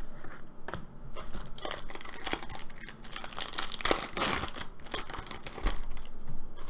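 Foil wrapper of a 2020 Panini Elite Extra Edition baseball card pack crinkling and tearing as it is opened by hand, a run of irregular crackles. A low thump comes near the end.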